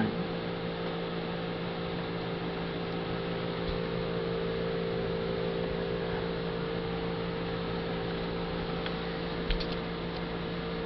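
Steady machine hum with fixed low tones, and a few faint clicks about nine and a half seconds in.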